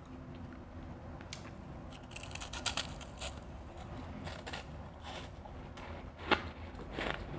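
A person biting and chewing refrozen crushed ice. A quick run of crisp crackles comes about two to three seconds in, then a loud crunch of a bite about six seconds in, with another shortly after.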